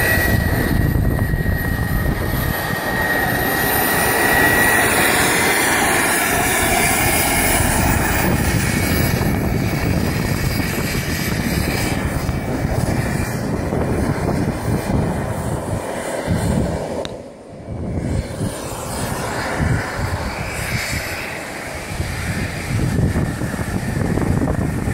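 Wren 80i gas turbine of a radio-controlled jet boat running at part throttle: a high turbine whine over a loud, steady rush of exhaust. The whine fades a few seconds in, and the sound drops briefly about 17 seconds in.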